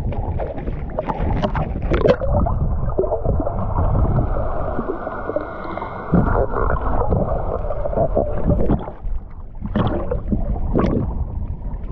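Water splashing and sloshing around the camera as a freediver goes under and comes back up. There are splashes a second or two in. The middle is muffled underwater noise, and more splashes come near the end at the surface.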